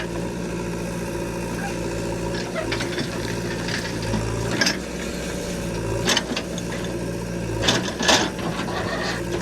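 A heavy diesel engine running steadily, with a few sharp clanks and knocks over it, the loudest about eight seconds in.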